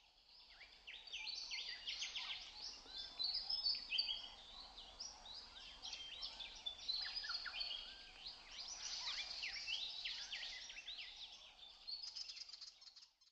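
Several songbirds singing at once: a dense, overlapping run of quick high chirps and trills. It fades in over the first couple of seconds and stops abruptly at the end.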